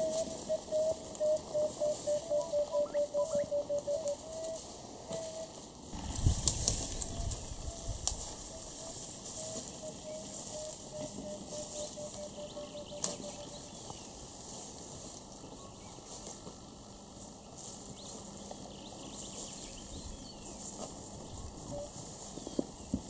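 A bird repeats a short whistled note about three to four times a second for the first four seconds, then more faintly. Around six seconds in come a few sharp snaps and a deep low sound lasting a couple of seconds, with rustling and insect hiss behind, around African elephants feeding in dry bush.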